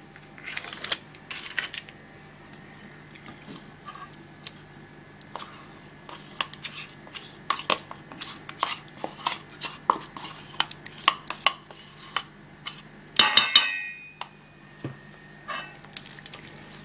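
Metal utensils clinking and scraping against a stainless steel mixing bowl and a cream pot as thick crème fraîche is scraped out and worked into beaten eggs. Irregular sharp clicks, with a louder burst about thirteen seconds in.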